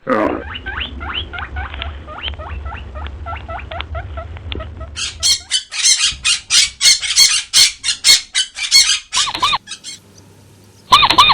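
Farm birds calling. A quick series of short chirps runs for about five seconds, then louder and shriller calls follow until the end of that stretch. Near the end come two brief loud calls with a wavering pitch.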